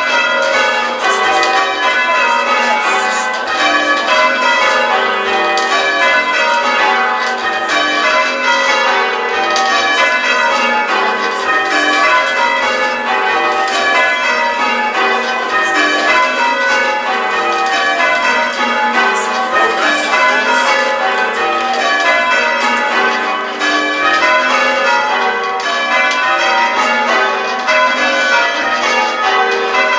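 A ring of church bells being change-rung: the bells strike one after another in rows that fall in pitch, repeating about every two seconds, with each row in a slightly altered order.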